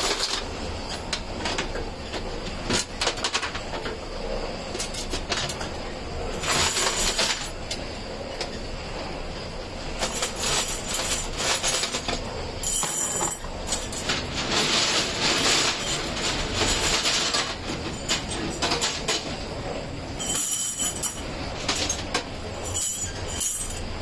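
Steel U hooks rattling and clanking against each other and the walls of a hexagonal tumbling barrel with a wet load, the metal clinking again as handfuls of hooks are pulled out.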